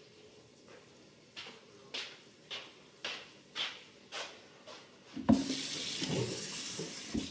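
Footsteps on a kitchen floor, about two a second. Then a knock and nearly two seconds of kitchen tap water running.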